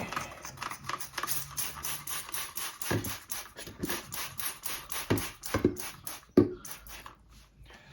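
Quick, repeated scrubbing strokes while cleaning with dish soap, about four or five a second, broken by a few knocks, the loudest about six seconds in.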